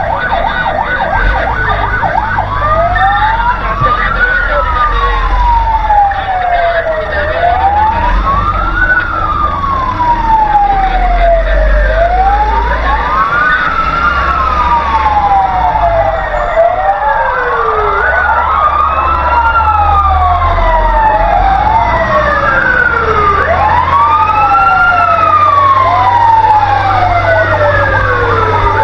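Fire truck sirens wailing, two or more out of step with each other, each rising in pitch over a second or so and then falling more slowly, repeating about every five seconds. Under them runs a steady low rumble.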